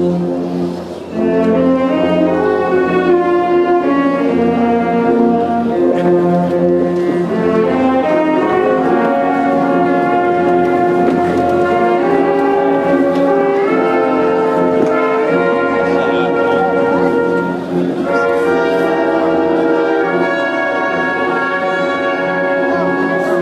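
Large concert wind band playing a symphonic piece, brass to the fore, with sustained chords under moving melody lines; the sound dips briefly about a second in.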